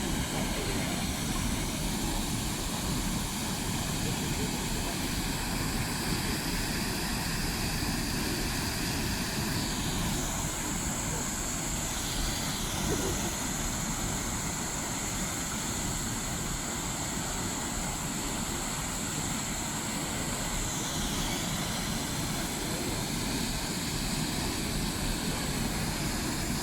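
Jagala waterfall's water pouring over the partly frozen falls: a steady, unbroken rushing roar.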